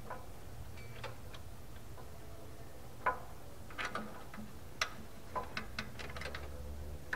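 Irregular light metallic clicks and taps of a hand tool working loose the fasteners on a VW air-cooled engine's carburetor, a few at a time with short gaps between them.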